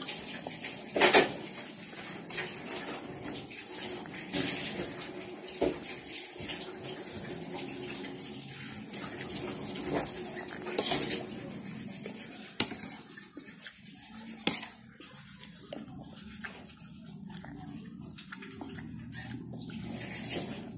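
Metal spoon and fork clinking and scraping against a plate a handful of times, with chewing and mouth sounds of eating in between.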